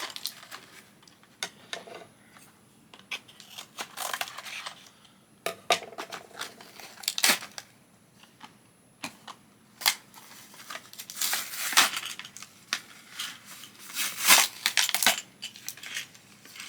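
Toy packaging being torn and crinkled open, with scattered clicks and rustles that grow busier in the second half.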